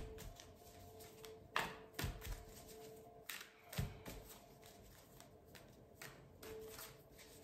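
A deck of tarot cards being shuffled by hand, quietly, with a few sharper taps and clicks as the cards are squared and slipped from hand to hand.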